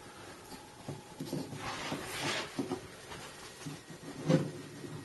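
Quiet handling sounds of tweezers and small paper pieces on a craft work mat: scattered light taps, a soft hiss about two seconds in, and a louder knock a little after four seconds.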